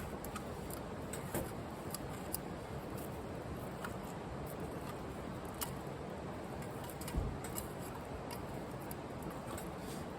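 Wood fire crackling in a wood-burning grill: irregular sharp pops and snaps over a steady hiss, with one dull thump about seven seconds in.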